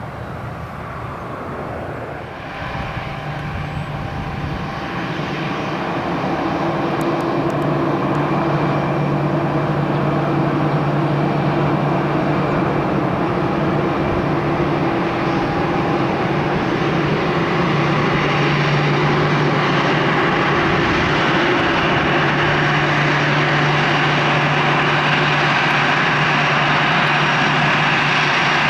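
Jet engines of an arriving Airbus A320, growing louder over the first eight seconds or so, then holding a steady drone with a whine over it.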